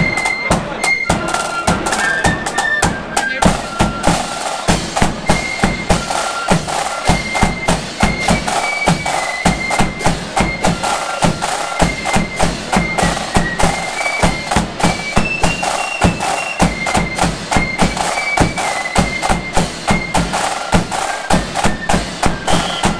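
A flute band playing a march at full volume: flutes carry a high stepping melody over rapid snare drumming, a pounding bass drum and clashing cymbals.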